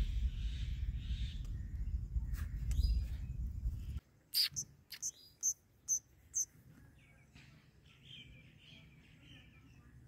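Low rumbling noise that cuts off abruptly about four seconds in, followed by a quick series of about six short, shrill Indian ringneck parrot calls, then quieter parrot chatter near the end.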